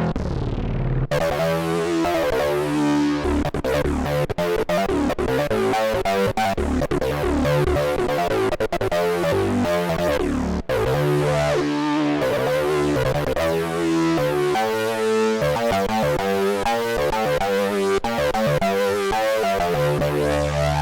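Nord Wave 2 synthesizer playing its factory lead patch 'Massive Ld': a continuous run of pitched notes with rich harmonics, changing note every fraction of a second.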